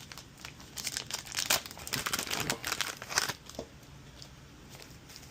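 Plastic packaging crinkling and rustling as it is handled, a run of irregular crackles that stops about three and a half seconds in.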